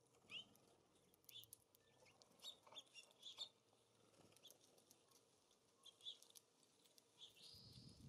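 Faint, scattered short chirps from small songbirds at a seed feeder, with a few light clicks among them. A low rumble starts near the end.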